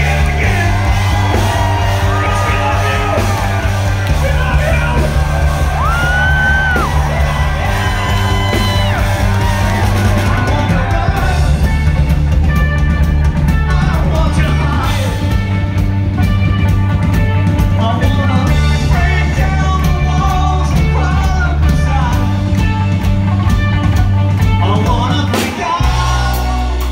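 Live rock band playing loud, with electric guitars, bass and drums under yelled singing. The bass line steps between held notes every couple of seconds.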